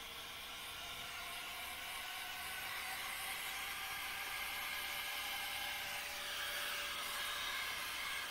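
Electric air blower running steadily, blowing dust out of a laptop's cooling fan and heatsink fins. A hiss of air sits under a steady motor whine, which rises slightly in pitch at first and grows gradually louder.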